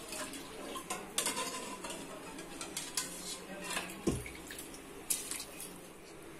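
Metal spatula clinking and scraping against the side of a metal cooking pot while rice is stirred into boiling water, in irregular sharp knocks, with one duller knock about four seconds in.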